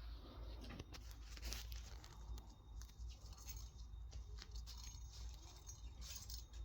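Faint scattered clicks, taps and rustles of cats batting and handling small plastic toys.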